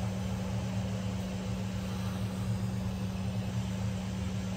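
Hot-air rework gun blowing steadily while desoldering memory chips from a graphics card, a constant droning hum with no change in pitch.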